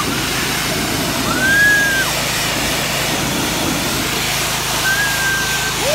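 Gas-engine pressure washer running steadily, its wand spraying water onto a fiberglass boat hull. Two high, drawn-out tones rise over it, one about a second in and one near the end.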